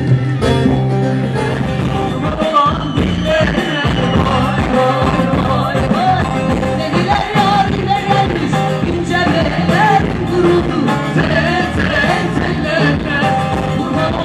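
Live Turkish folk song (türkü) sung over bağlama and band accompaniment with a steady beat, the crowd singing along.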